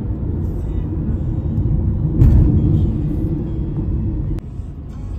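Steady low rumble, swelling briefly about two seconds in and dropping off abruptly near the end.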